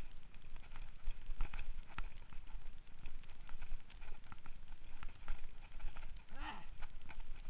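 Mountain bike clattering down a dirt trail: irregular rattling clicks and knocks from the bike and tyres over the rough ground, over a steady wind rumble on the bar-mounted camera. A brief louder sound with a bending pitch stands out about six and a half seconds in.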